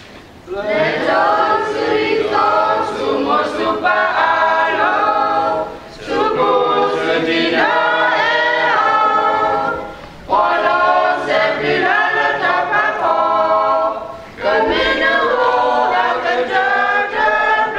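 Small mixed choir of men and women singing unaccompanied, in phrases of about four seconds with a brief breath between each.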